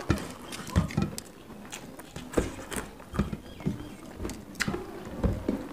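Eating by hand: chewing and mouth smacking with irregular sharp clicks and soft thuds, along with fingers mixing rice on steel plates.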